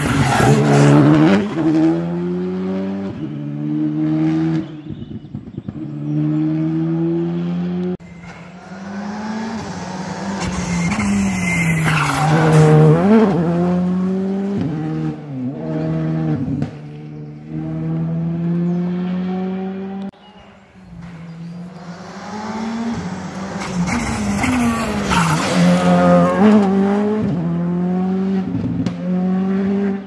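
Rally cars driven hard: engines rev up and drop back through gear changes as each car goes by, several passes one after another with abrupt breaks between them.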